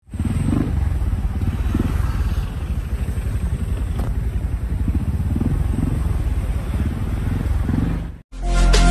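A steady low engine rumble with a fast pulse, like a vehicle running close by. It cuts out suddenly near the end, and upbeat electronic pop music starts.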